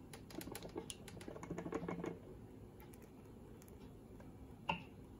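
Faint, scattered clicking and tapping of kitchenware as the blended flan mixture is poured from a blender jar into the mould, busiest in the first two seconds, with one sharper tap a little before the end.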